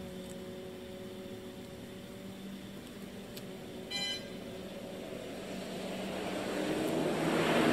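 A vehicle approaching, its noise swelling steadily to its loudest near the end, over a steady low hum. A brief squeak about four seconds in.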